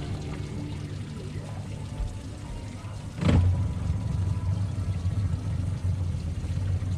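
Boat motor running with a steady low hum. About three seconds in there is a knock, and the motor runs louder after it.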